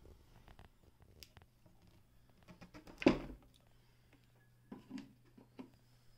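Handling noises on a Brother Window-Matic sewing machine and its wooden cabinet: scattered clicks and knocks, one louder thump about three seconds in, and a few softer knocks near the end, all over a faint steady hum.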